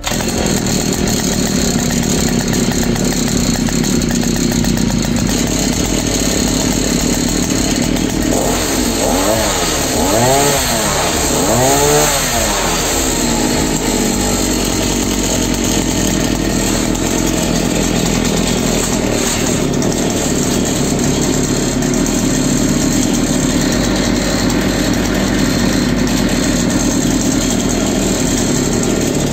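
Two-stroke petrol brush-cutter engine running, driving a homemade hiller's chain-and-sprocket transmission and spiked metal wheels. About eight seconds in it revs up and down several times, then settles back to a steady run.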